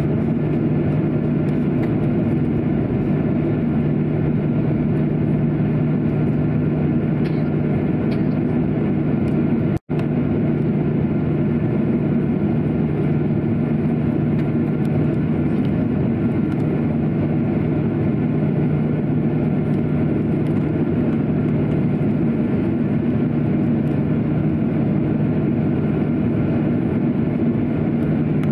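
Steady cabin noise inside a Boeing 737-800 as it taxis: its CFM56-7B jet engines running with a constant low hum over an even rushing noise. The sound drops out for an instant just under ten seconds in.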